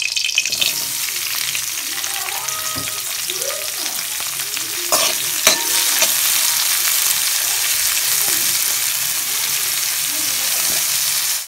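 Chopped onion and green chillies sizzling as they fry in hot oil in a metal wok, stirred with a spoon. A steady hiss, with a couple of sharp knocks about five seconds in.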